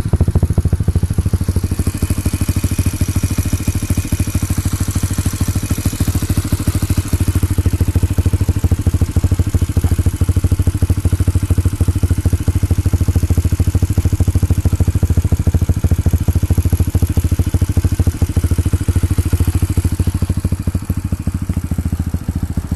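Yamaha XTZ125's air-cooled single-cylinder four-stroke engine idling steadily, its exhaust pulsing evenly through a homemade welded mid-pipe and an aftermarket slip-on silencer.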